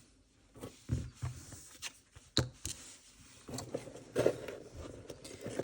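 Unboxed items being handled: scattered small clicks, taps and light rustling, the sharpest click about two and a half seconds in.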